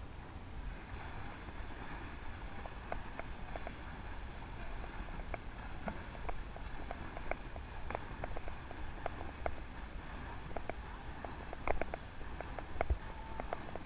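Swimmers' arms and kicks splashing in a pool: a steady hiss of churned water with irregular sharp slaps on the surface that come thicker and louder near the end. Low wind rumble on the microphone underneath.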